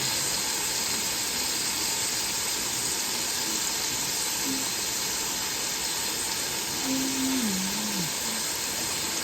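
Chuck roast searing in bacon grease in a Ninja Speedi pot on its sear/sauté setting at high heat: a steady sizzle.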